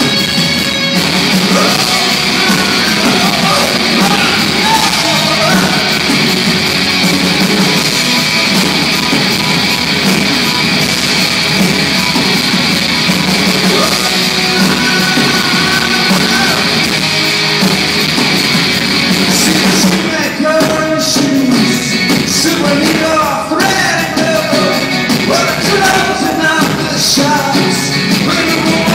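Loud live rock band playing, with a sung vocal over the band. The dense top end of the sound thins out about twenty seconds in.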